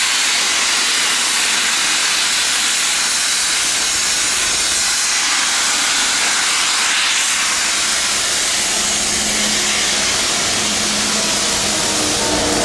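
Loud, steady hiss of steam venting from the cylinder drain cocks of LMS Black 5 steam locomotive 44871. From about two-thirds of the way in, the low hum of a passing Class 66 diesel locomotive's engine joins underneath.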